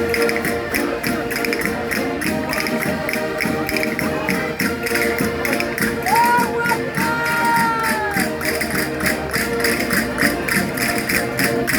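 Concertinas playing a lively folk dance tune with a fast, even beat.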